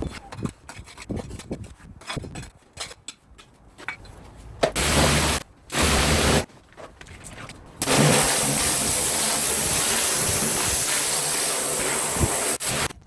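Pressure washer jet spraying: scattered light knocks at first, then two short bursts of spray and, about eight seconds in, a steady blast of hissing spray for about five seconds that cuts off sharply near the end.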